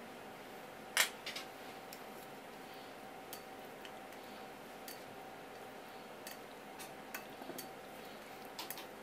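Chopsticks clicking against a ceramic bowl while stirring strips of raw squid: one sharp clack about a second in, then light, scattered ticks.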